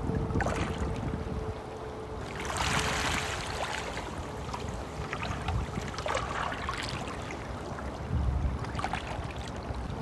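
A stream flowing steadily, with louder surges of splashing about two and a half seconds in, around six seconds and near the end.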